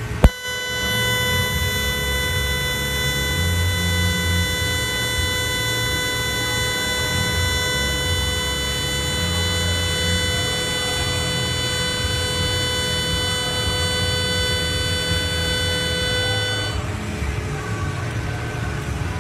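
Miller Dynasty 280DX TIG arc pulsing at 500 pulses per second: a steady, high-pitched buzz set off by a sharp crack as the arc strikes just after the start. The arc cuts out suddenly a couple of seconds before the end, leaving a low rumble.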